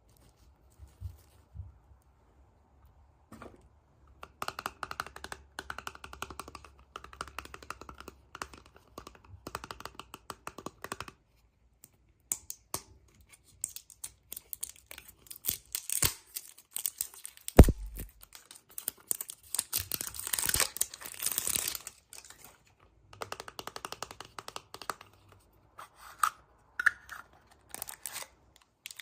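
Plastic packaging being crinkled, rustled and torn open by hand in irregular stretches of crackling. There is one sharp thump a little past the middle.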